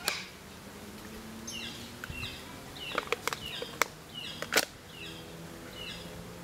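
Small birds chirping over and over in short, high, downward-sliding notes, with a few sharp clicks in between, the loudest about four and a half seconds in.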